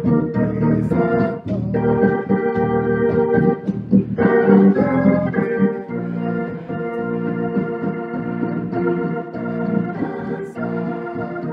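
Organ music: held chords that change to a new chord every couple of seconds, with no voice over them.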